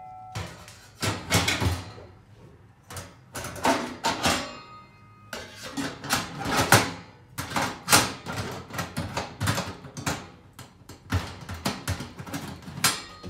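Metal bike-storage brackets knocking and clattering against aluminium slotted wall rails as they are handled and fitted: a string of irregular sharp knocks and clacks, some with a short metallic ring.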